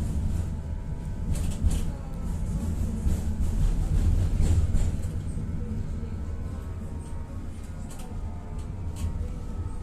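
Tatra-Yug K1M tram running along the track, heard on board: a heavy low rumble of wheels and running gear with scattered sharp clicks. The rumble eases somewhat after about five seconds.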